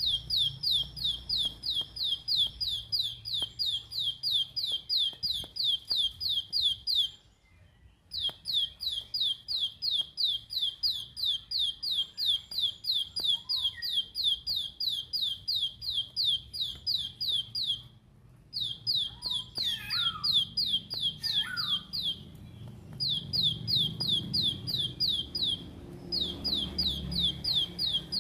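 Plain prinia (ciblek sawah) singing its rapid 'tembakan' burst song: a long string of sharp, high, evenly repeated notes, about three a second, in runs of several seconds broken by brief pauses.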